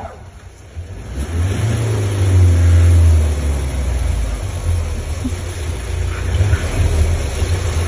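Motor vehicle engine running close by, a low rumble that swells loudest around two to three seconds in.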